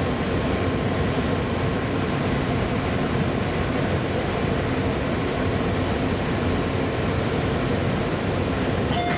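Running noise inside a JR 211-series electric multiple unit car as it draws into a station: a steady rumble of wheels and running gear with a faint steady hum. A sharp click comes near the end.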